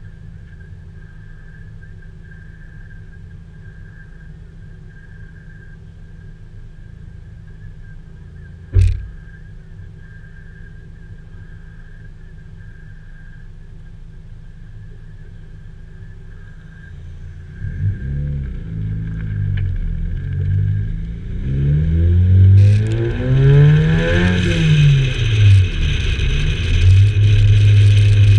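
Car engine idling with a steady low rumble, broken by a single sharp thump about nine seconds in. Past the halfway point the engine revs rise and fall several times as the car pulls away and speeds up, wind rushing over the side-mounted camera, and it settles into a steady drone while driving.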